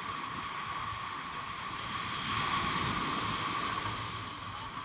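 Ocean surf washing onto the beach, a steady rushing wash that swells a little about halfway through, with a thin steady tone underneath.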